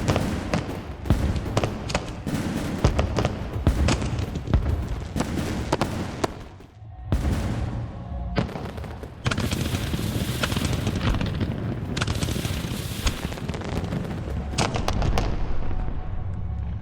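Aerial fireworks bursting in rapid succession: many sharp bangs and dense crackling, with a short lull about seven seconds in. Music plays underneath.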